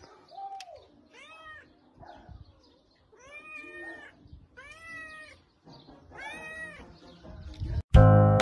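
Domestic cat meowing over and over, about six separate meows that each rise and fall in pitch. Loud music cuts in near the end.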